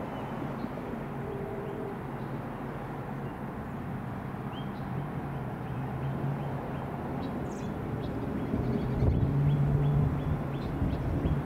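A distant engine's low drone runs throughout, swelling louder about nine seconds in. Over it a bird gives a series of short, high chirps through the second half.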